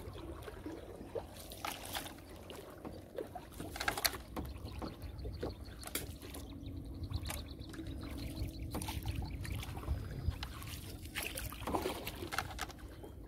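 Small boat on a river while a fishing net with lead sinkers is paid out: irregular knocks, clicks and small water splashes over a low rumble, with a faint steady hum midway.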